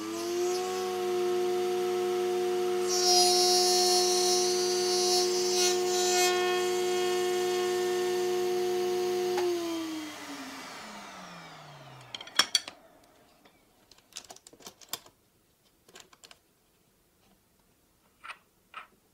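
Electric planer mounted in a table rig running at a steady pitch just after starting up, with a harsher, higher noise joining about three seconds in. It is switched off about nine seconds in and winds down with a falling whine over about two seconds. A few light clicks and knocks follow as the rig is handled.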